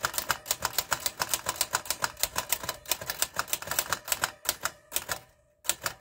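A 1942 Remington Envoy manual portable typewriter being typed on quickly, its type bars striking the freshly re-covered platen several times a second. The keystrokes thin out to a few separate strikes near the end.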